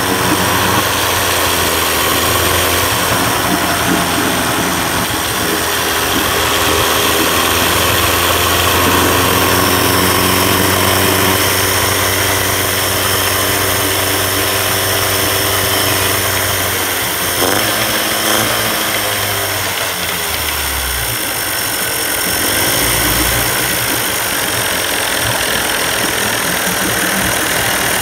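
1990s 30 hp Evinrude two-cylinder two-stroke outboard running steadily after a cold start, its note changing a little past halfway through. No popping or lean sneeze is heard from the carburetor: a sign that the cleaned, adjusted fuel system is delivering enough fuel.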